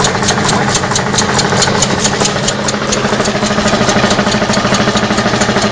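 Hero Honda 98cc single-cylinder engine converted to run on compressed air, running steadily with a sharp regular puff or click about five times a second over a steady hum, as a solenoid valve lets air in each cycle.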